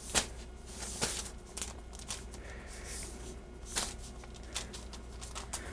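Hands pressing and stretching pizza dough on parchment paper: scattered soft rustles of the paper and light taps of the fingers, over a faint low hum.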